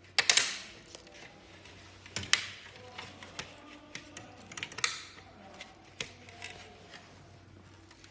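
Sharp plastic clicks and snaps as a Mercedes star emblem is pressed into a plastic grille, the loudest cluster just after the start, then scattered knocks and clicks as the grille is handled.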